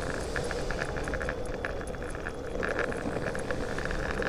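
Wheels rolling steadily over pavement, with a continuous rumble and rapid fine ticking or jingling on top.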